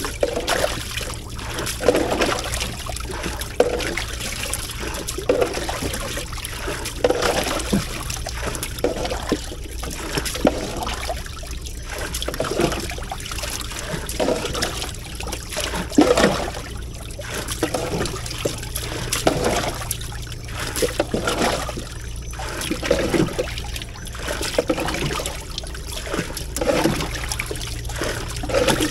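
Water being scooped out of a boat's fish hold with a plastic scoop and thrown over the side, splashing and pouring in repeated strokes about once a second.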